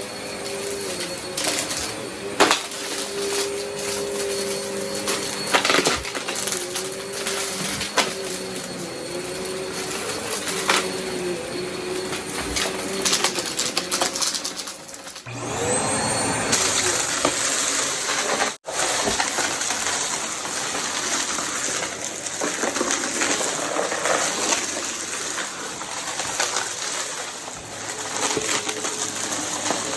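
Vacuum cleaner running, its motor tone wavering slightly, with frequent sharp clicks and rattles. About halfway through the sound dips, then a rising whine follows.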